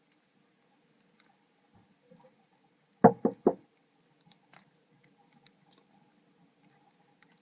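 Three quick knocks on something hard, a quarter second apart, about three seconds in; the rest is faint low background noise.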